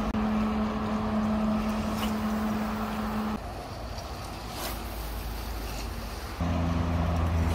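Steady low engine hum with wind and surf noise. The hum drops away about three seconds in and returns louder and deeper near the end.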